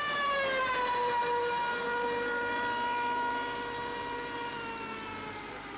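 A police siren mounted on a light aircraft gives one long wail: its pitch slides down a little in the first second, then holds and slowly sinks as the sound fades toward the end.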